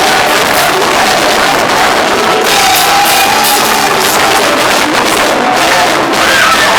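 Loud live praise music with a drum kit, and a congregation's voices singing and calling out over it.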